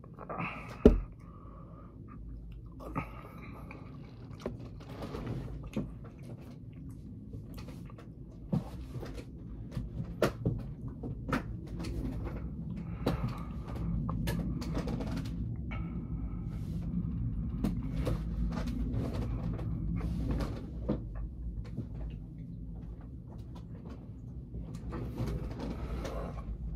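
Close-up eating sounds: chewing food, with scattered clicks and knocks from handling a cardboard takeout box and a sharp knock about a second in.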